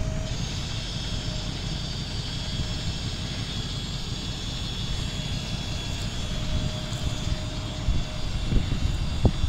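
Engine of a loaded dual-rear-wheel dump truck running as the truck moves slowly over dirt, a steady low drone.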